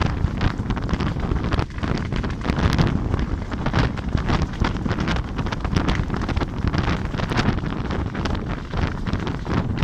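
Wind buffeting the microphone, steady and loud. Through it come many irregular sharp crackles and pops from the burning cane brake.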